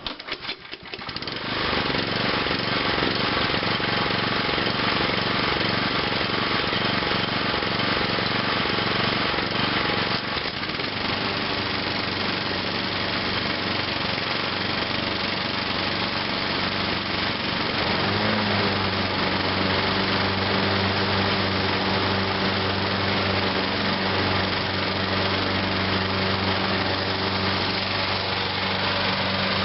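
Three lawnmower engines started one after another: the first catches about a second in, another joins around ten seconds in, and the last about eighteen seconds in adds a deeper steady hum, all three then running together.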